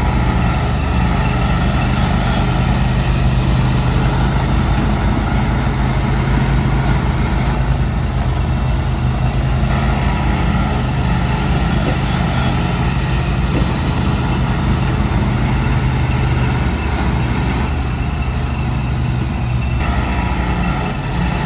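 A vehicle engine idling steadily, a low even hum that shifts slightly about three-quarters of the way through.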